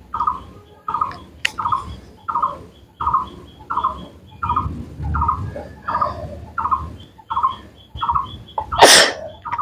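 A small bird chirping over and over, a short chirp a bit more than once a second. Near the end a person sneezes sharply, the loudest sound here.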